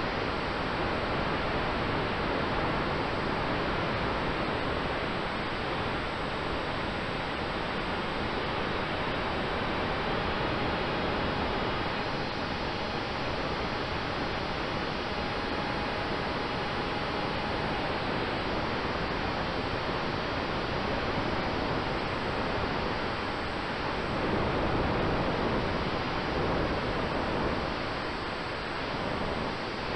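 Steady rushing airflow and propeller noise on the onboard camera of a large-scale model aircraft in flight, with a faint steady tone running underneath.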